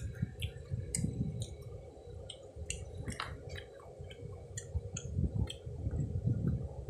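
Close-miked chewing of skewered fried street food: a low rumble of the jaw working, with wet lip and tongue clicks and smacks several times a second.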